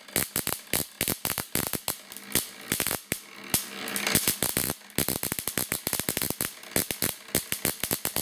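High-voltage sparks from a Ruhmkorff induction coil snapping across the gap between two brass ball electrodes, a rapid, irregular crackle of sharp cracks with a couple of brief lulls.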